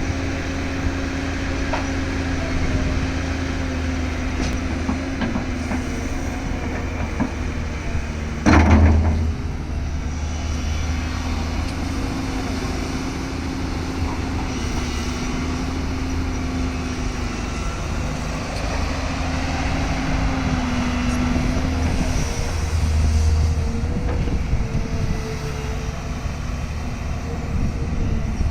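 Tata Hitachi excavator's diesel engine running steadily under load, with a steady hum and low rumble. About eight and a half seconds in there is one brief, loud burst.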